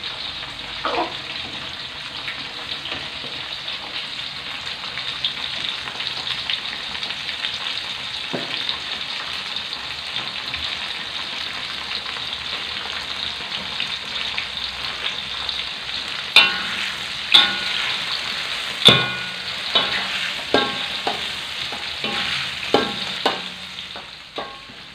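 Chillies, shallots, garlic and tomato sizzling steadily as they fry in hot oil in a metal wok: the base for sambal belacan. About two-thirds of the way through, a metal ladle starts stirring, scraping and knocking against the wok several times in sharp clanks.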